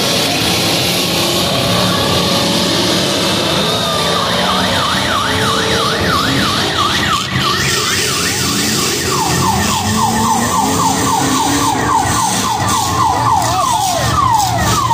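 An emergency vehicle's electronic siren yelping in quick rising-and-falling sweeps, about four a second. It sounds in two stretches, starting a few seconds in and again from about the middle, over the steady noise of running derby car engines.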